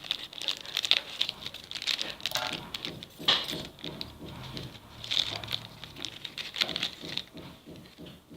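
Irregular crinkling and light taps of plastic packaging being handled, with scattered small clicks that thin out near the end.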